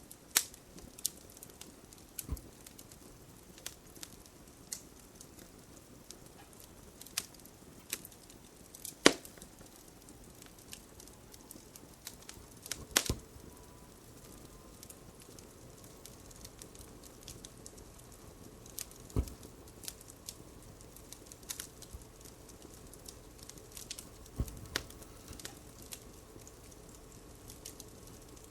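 Fireplace crackling: irregular sharp pops and snaps over a low steady hiss, with a louder pop about nine seconds in and another about thirteen seconds in.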